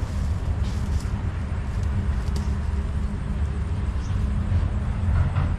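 Steady low rumble of wind buffeting the microphone, with a few faint rustles of grass and clothing.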